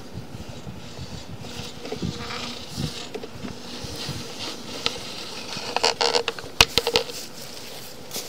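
Handling and scraping noise as a sewer inspection camera is drawn out of the pipe, with a quick cluster of sharp knocks and crackles about six to seven seconds in.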